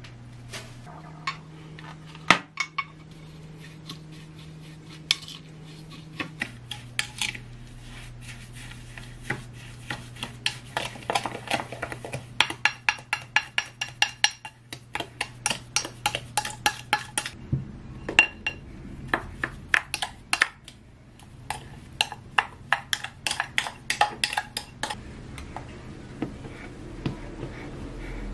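Wooden spoon stirring sliced plums and granulated sweetener in a glass bowl, knocking against the glass in quick rhythmic runs of several taps a second, with scattered single clicks before the stirring starts.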